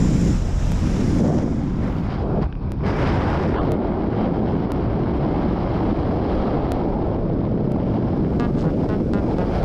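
Steady rushing roar of wind and aircraft engine coming in through the open jump door of a skydiving plane in flight, buffeting the microphone.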